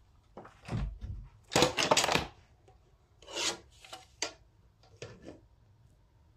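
Handling noise: the handheld camera's microphone rubbing and scuffing against hand and clothing in a few short bursts, the loudest about two seconds in.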